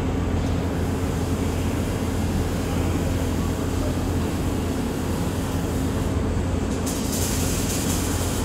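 Steady machinery hum from a Hurco TMX8i CNC lathe and its RoboJob robot loading cell running, with low steady tones under a noisy haze. A high hiss joins about seven seconds in.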